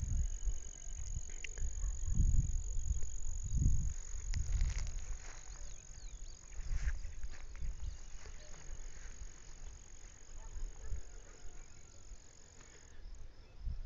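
A steady high-pitched insect trill, cricket-like, that stops near the end, over low rumbles on the microphone that are loudest in the first few seconds.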